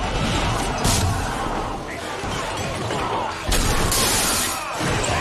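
Battle sound mix of shouting soldiers amid crashes and clashing, with a sharp crash about a second in and a longer burst of crashing noise from about three and a half seconds.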